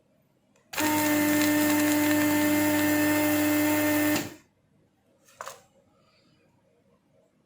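Small electric pump motor of a desoldering tool, switched on for about three and a half seconds and then stopped, sucking solder out of the charging port's through-holes. A short faint click follows a second later.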